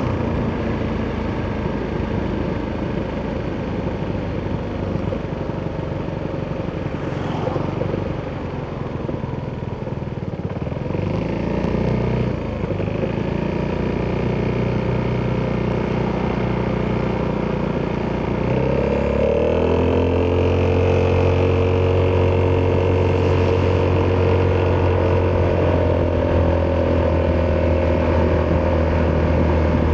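Italjet Dragster 200's single-cylinder four-stroke engine running through an Akrapovic exhaust while riding. The note is steady, rises in pitch as it accelerates about two-thirds of the way through, then holds a higher steady note.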